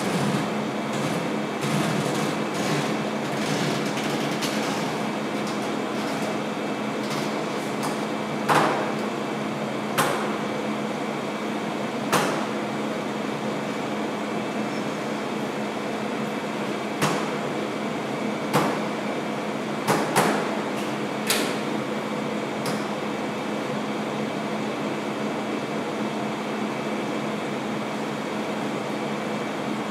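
A steady hum runs throughout. Between about 8 and 21 seconds in, about eight sharp clicks or snaps cut through it, each with a short ringing tail.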